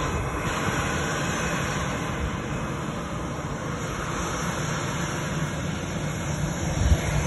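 Jet engines of a StarFlyer Airbus A320 at taxi power, heard as a steady rumbling hiss across the apron, with a brief low bump near the end.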